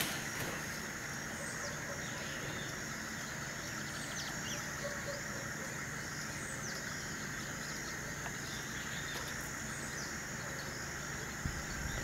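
Rural outdoor ambience: a steady hiss with a few faint, short bird chirps scattered through it.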